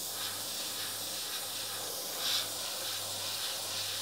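Airbrush hissing steadily as it sprays paint for shading, with a brief louder puff about two seconds in.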